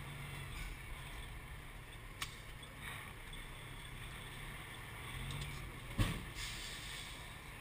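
Truck engine running low and steady, heard from inside the cab while the truck creeps along, with a sharp click about two seconds in and a thump about six seconds in.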